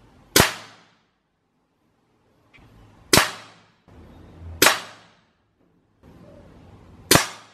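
Four shots from a Norica Dark Bull bullpup PCP air rifle in 6.35 mm (.25) calibre. Each is a sharp report that dies away within about half a second. They come about a second in, at three seconds, at four and a half seconds and near the end.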